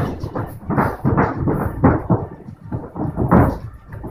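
Light boxing sparring in a ring: boxing gloves hitting and bare feet stamping and shuffling on the ring canvas, a run of irregular dull thuds, a couple of them louder.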